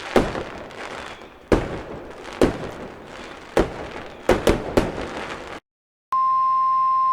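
About seven sharp cracks and pops over a constant hiss, then a half-second drop-out. Near the end, the NOAA Weather Radio 1050 Hz warning alarm tone starts: one loud, steady, unbroken tone.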